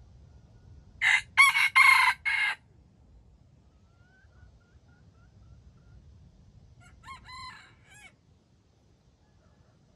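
A junglefowl rooster crows a short crow broken into four parts about a second in. A fainter crow follows about seven seconds in, with faint small-bird chirps between.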